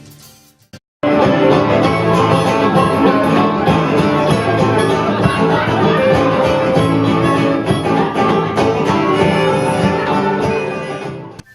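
Background music, a bluegrass-style tune with plucked strings, starting abruptly about a second in and fading near the end.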